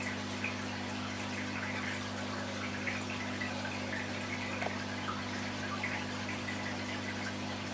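Aquarium filter pump running with a steady hum, and water bubbling and trickling.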